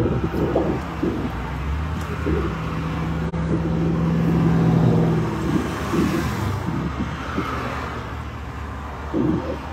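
Car engine and road noise heard from inside the cabin, a steady hum that swells a little past the middle and then eases off.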